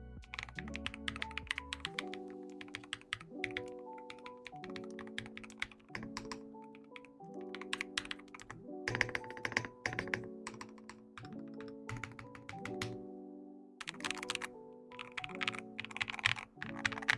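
Typing on an Akko MU02 wooden-cased mechanical keyboard: quick bursts of keystroke clicks with short pauses between them, over background music.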